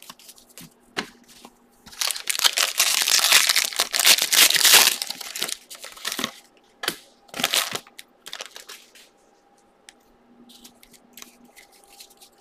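Foil trading-card pack wrappers crinkling and tearing as packs are ripped open, loudest from about two to five seconds in, with shorter bursts after. Lighter rustling of the cards being handled near the end.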